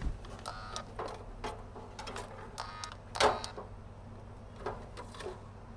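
Irregular soft knocks and clicks, the loudest about three seconds in, over a steady low hum.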